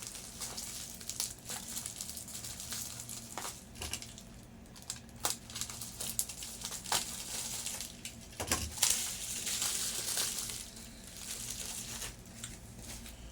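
Crinkling and rustling of packaging as a wristwatch is unwrapped by hand, with scattered light clicks.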